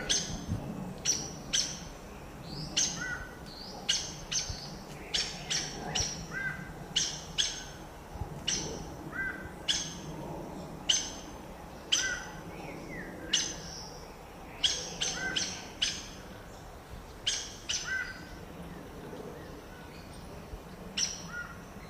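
Saffron toucanet (araçari-banana) giving short, sharp calls over and over at irregular intervals, often two or three in quick succession, some with a lower second note.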